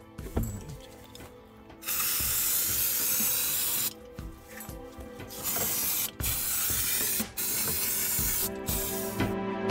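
Aerosol spray can hissing in bursts in a car's engine bay: one long spray of about two seconds starting some two seconds in, then four shorter sprays in quick succession.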